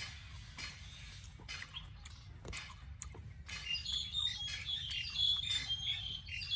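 Birds chirping, a rapid run of short high calls starting about halfway through, over scattered sharp clicks and a steady thin high-pitched tone.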